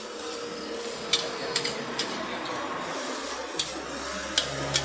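Metal spatula scraping and clanking against a wok while fried rice is stir-fried, with about six sharp clanks over a steady hiss of frying.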